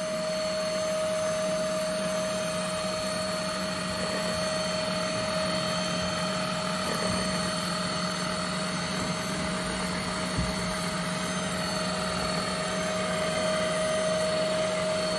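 SilverCrest cordless handheld cyclone vacuum cleaner running steadily: a constant motor whine and hum over the rush of sucked air.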